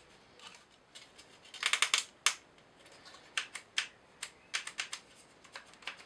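Wooden model-kit parts clicking and clacking as they are handled and pushed together by hand: a quick cluster of clacks a little under two seconds in, one sharp click just after, then scattered single clicks.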